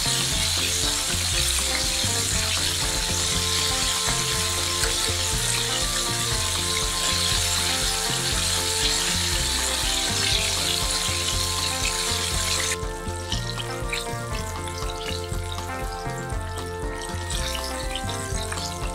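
Flour-dredged, buttermilk-marinated chicken pieces deep-frying in a pan of hot canola oil, a steady sizzle that stops abruptly about thirteen seconds in. Background music with a bass line plays throughout.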